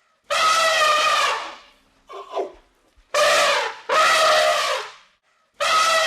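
Elephant trumpeting: four long, loud calls, each about a second, with a shorter, lower call after the first.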